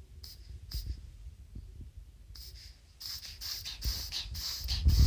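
Shih tzu making a strange noise: short, sharp sounds spaced out at first, then coming faster and louder over the last two seconds.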